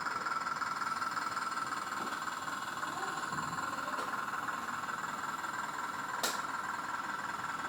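A 1/14-scale Jack's E20 RC hydraulic excavator idling while powered on, a steady mechanical hum with a high whine, and a single click about six seconds in.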